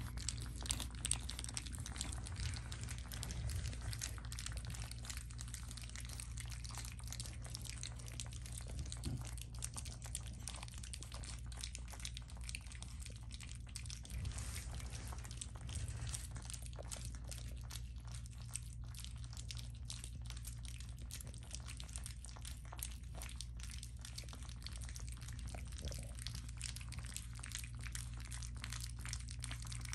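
Four-week-old French bulldog puppies lapping and smacking at soft weaning mush in a stainless steel bowl: a continuous patter of small wet clicks and slurps, over a steady low hum.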